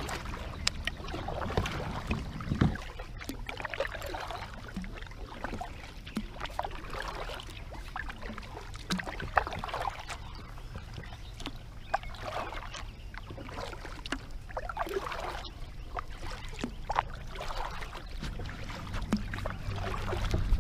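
Kayak paddling: a double-bladed paddle dipping into and pulling through calm lake water, with splashes, drips and scattered light knocks.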